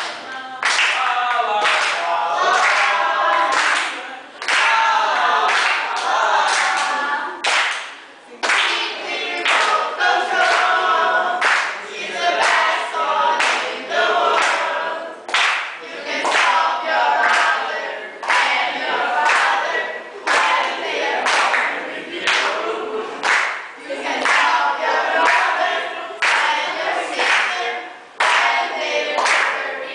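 Several voices singing together, with handclaps marking the time.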